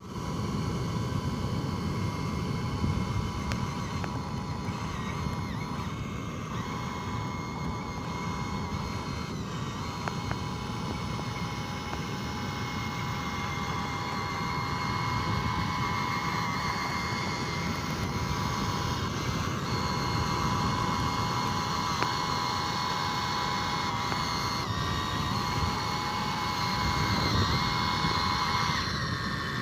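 Small electric motors of a handmade RC truck whining steadily, the pitch shifting slightly now and then, over a rough low rumbling noise.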